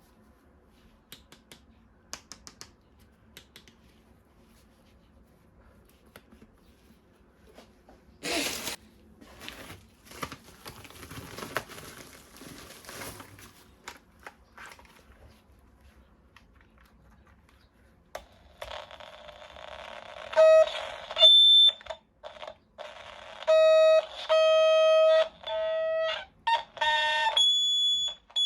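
Plastic packaging and parts rustling and clicking as the toy is handled, then a battery-powered toy's electronic sound chip plays loud beeping tones in repeated chopped bursts, starting about two-thirds of the way through.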